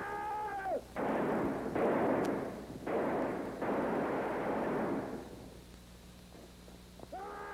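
Old western-film action soundtrack: a long high cry at the start, then about four seconds of loud blasts, four of them in a row, each starting suddenly with a rushing tail; another long cry begins near the end.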